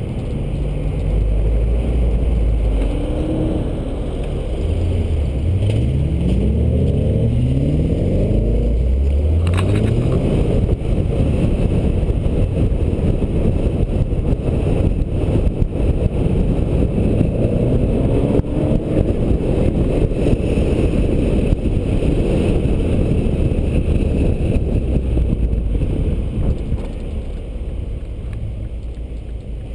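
Car engines pulling hard and revving up through the gears, twice, under constant wind and road noise on a roof-mounted camera.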